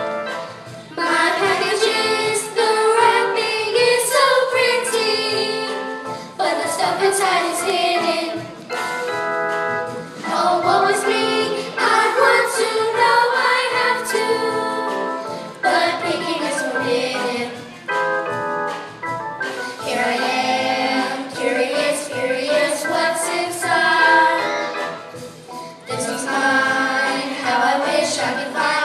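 Choir of third-grade children singing together, in phrases of a few seconds each.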